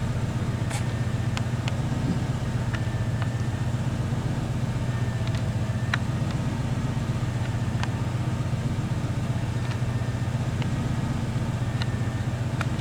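A vehicle engine's steady drone while driving on a rough dirt road, with scattered sharp clicks and rattles over it.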